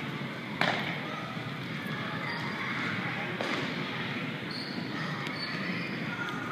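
A single sharp smack of a baseball about half a second in, with a fainter click a few seconds later, over steady background noise.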